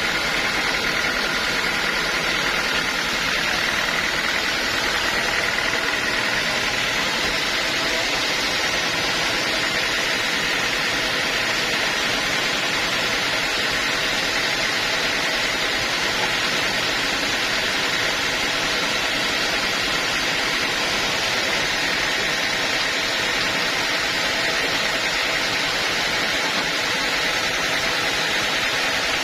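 Sawmill machinery running steadily: a constant mechanical drone with a steady whine over it, holding the same level throughout.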